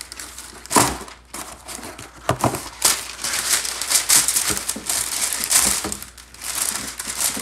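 A sheet of parchment paper crinkling and rustling as it is handled, spread and smoothed over a metal baking tray. A few sharp knocks come in the first three seconds.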